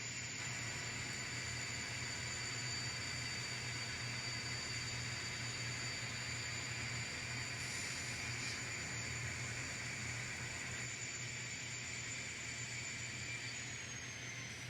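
N scale model train running slowly through turnouts: a steady hiss over a low hum, with a faint high whine that drops slightly in pitch near the end.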